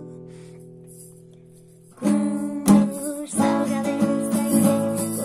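Classical acoustic guitar: a strummed chord rings and fades for about two seconds, then strumming starts again with a sharp knock soon after.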